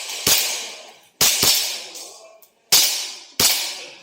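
WE G17 gas-blowback airsoft pistol firing five shots at an uneven pace, two of them in quick succession about a second in. Each sharp crack is followed by a short echoing tail.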